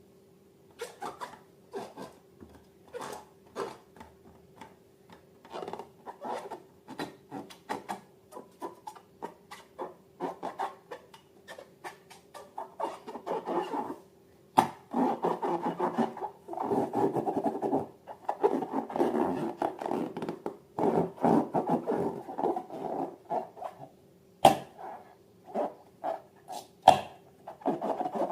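Slime being mixed and handled: irregular sticky clicks, squishes and scraping, sparse at first and denser and louder from about halfway, over a faint steady hum in the first half.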